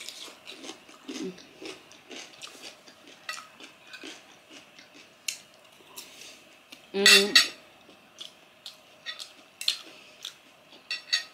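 Spoon and fork clicking and scraping against a ceramic plate, mixed with close-up eating and chewing sounds. A short, louder vocal sound comes about seven seconds in.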